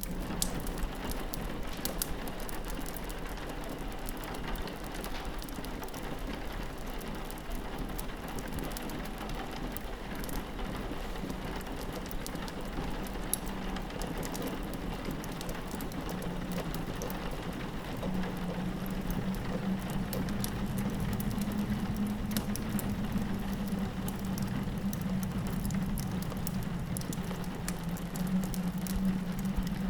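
Rain pattering against a window, with a fireplace crackling in sharp scattered pops over it. Under both, the wind howls in a low steady drone that grows a little louder about two-thirds of the way through.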